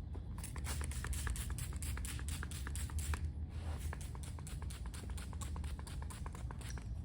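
Rapid light ticking and crackling from hand work on the tank, several clicks a second with a short pause about three seconds in, over a steady low hum.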